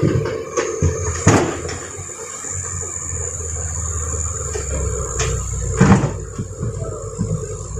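Heavy machinery running with a steady low rumble, broken by two loud knocks, about a second in and again about six seconds in, as rocks are loaded.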